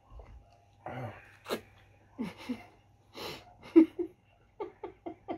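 Muffled hums and grunts from people with mouths full of pizza, with sharp breaths through the nose. A quick run of four short vocal bursts comes near the end.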